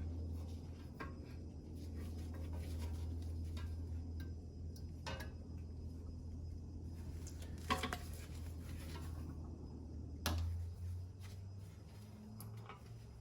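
A few light metallic clicks and clinks, spaced seconds apart with the sharpest about 8 and 10 seconds in, as the espresso machine's heating-element wires and small metal parts are worked loose by hand, over a steady low hum.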